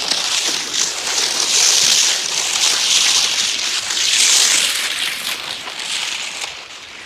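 Inovik cross-country skis gliding in classic ski tracks on snow: a loud swishing hiss that swells with each stride, about every second and a half, easing off near the end.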